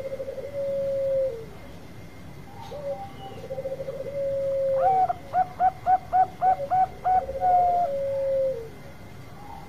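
Bangkok-type zebra dove (perkutut) cooing its song three times, each phrase a quick stuttering run of notes ending in a long held note. Over the middle of the third phrase there is a higher series of about seven short separate notes.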